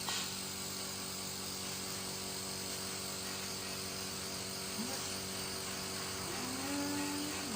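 Steady low electrical hum with a faint hiss, and a brief faint voice sound near the end.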